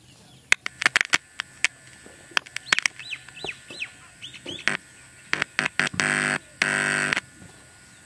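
Clicks and pops from an aux cable being handled at a TDA2030 amplifier's input, then two short bursts of steady electrical buzz from the loudspeaker about six and seven seconds in. Birds chirp faintly in the background.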